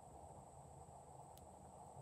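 Near silence: a steady faint hiss and hum of room tone, with one faint click about two-thirds of the way through.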